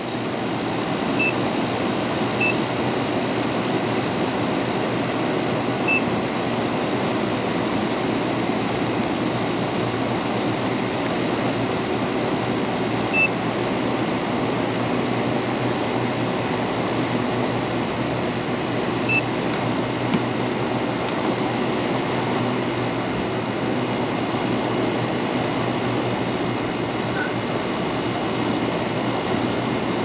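General Electric rooftop RV air conditioner running with its shroud off, compressor and condenser fan on high after start-up: a steady fan-and-compressor noise with a low hum. A few short high beeps sound now and then over it.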